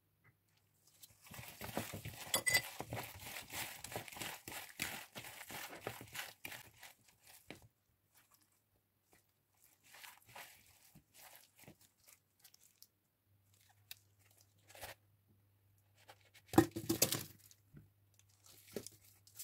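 A long crackling rustle with many small clicks for several seconds, then quieter handling as gloved hands toss cherry tomato halves in a plastic bowl. Near the end comes a louder rustle and knock as they are tipped onto a parchment-lined baking tray.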